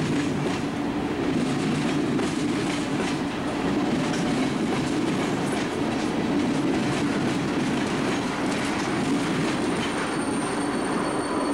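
Freight train cars, tank cars among them, rolling past close below: a steady loud rumble of steel wheels on rail with quick clicking as wheels cross rail joints. A thin high squeal comes in near the end.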